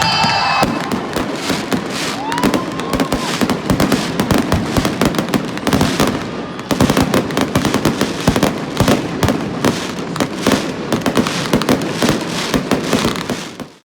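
Aerial fireworks going off in rapid, near-continuous bangs and crackles that cut off abruptly near the end.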